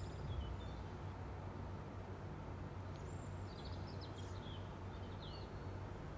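Black-eyed pea fritters sizzling steadily as they deep-fry in hot oil, over a steady low hum. A bird chirps a few times about three to five seconds in.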